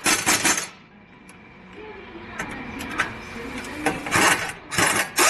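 Workshop tool noise in four short bursts of rapid metallic clattering, the last trailing off into a falling whine.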